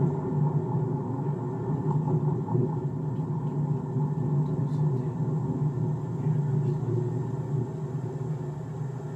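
Car driving through city streets: a steady low rumble of engine and road noise that eases off slightly near the end.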